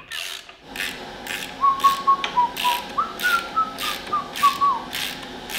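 A person whistling a short tune over the clicking strokes of a ratchet wrench, about two strokes a second.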